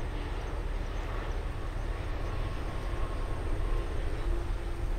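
Three-engined Dassault Falcon business jet on final approach just above the runway: a steady jet rumble with a faint engine whine, a lower whine joining near the end.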